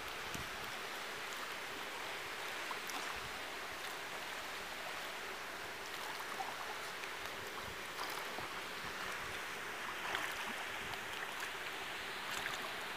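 Steady splashing and washing of pool water as a swimmer's arms and legs stroke through it, with small scattered splashes.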